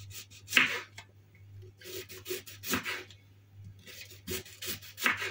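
Knife slicing an onion into rings on a cutting board: about seven short, uneven cuts.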